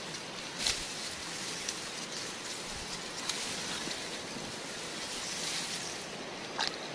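Grass and reed stems rustling close by as they are pushed aside, over a steady outdoor hiss, with a few sharp crackles of stems snapping or brushing.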